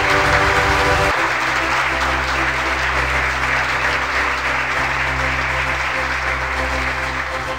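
Audience applauding over background music, which changes to a new passage about a second in.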